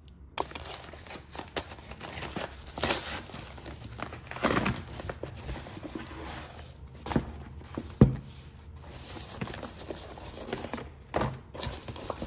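Paper mailer bag rustling and crinkling as a parcel is unpacked by hand, with short knocks as items are taken out and set down on a desk; the loudest, a sharp thump, comes about eight seconds in.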